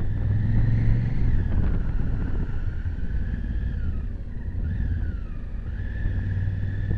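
Honda Africa Twin CRF1000's parallel-twin engine running under way through tight bends, heard from a camera mounted on the bike. The revs drop and pick up again a few times as the rider eases off and accelerates through the turns.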